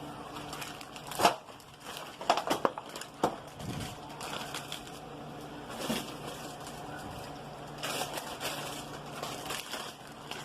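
Crinkling and rustling with scattered small clicks and knocks as marinated spare ribs are handled and laid into a pan.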